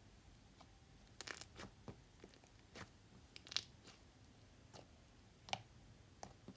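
Slime being squished and poked by hand, giving scattered sharp crackles and pops. Two pops stand out, one about halfway through and one near the end.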